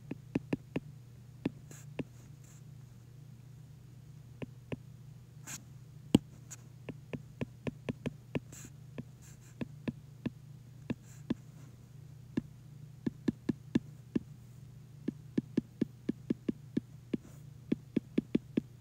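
Stylus tip clicking and tapping against a tablet's glass screen while handwriting, in quick irregular clusters of sharp ticks, over a steady low hum.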